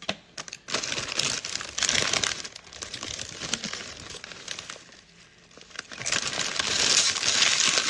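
A plastic bag crinkling as it is handled, in two stretches: one lasting about four seconds from just after the start, and another from about six seconds in.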